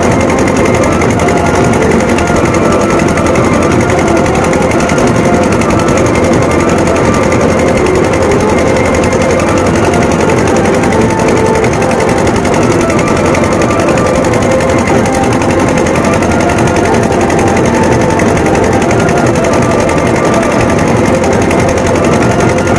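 Loud, fast, unbroken drumming, like the tasha drums played at Muharram stick-fighting displays, over the din of a large crowd.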